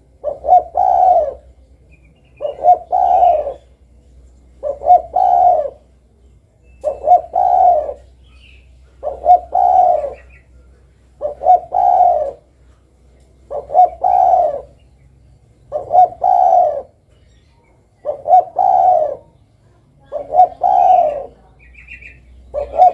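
Spotted dove (derkuku) cooing, a loud multi-note phrase repeated steadily about every two seconds, eleven times over. Faint high chirps from small birds come between a few of the phrases.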